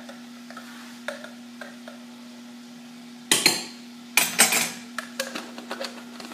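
A metal spoon scraping and clinking against a spice jar as spice is scooped out, with light taps at first and two louder clattering bursts about three and four seconds in.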